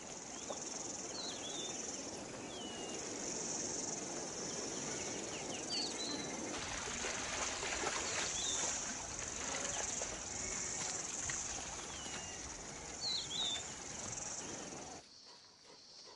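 Outdoor natural ambience: a steady high-pitched insect chorus with short high chirps now and then, fading out about a second before the end.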